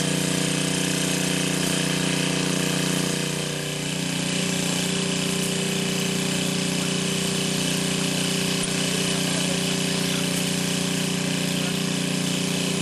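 Steady machine drone, a constant hum made of several held tones, with a brief dip in level a little over three seconds in.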